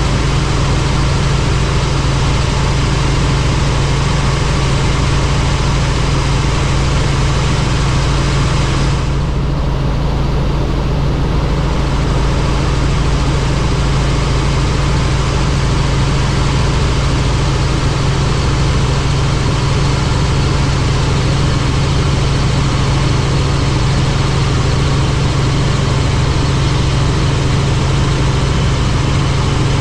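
Helicopter in flight: a loud, steady drone of engine and rotors with a strong low hum under an even hiss. The hiss softens briefly about nine seconds in.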